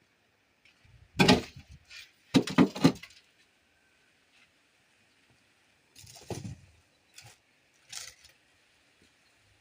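Bricks knocking and clinking against each other as they are stacked: a loud knock about a second in, a quick cluster of three around two and a half seconds, then softer knocks later.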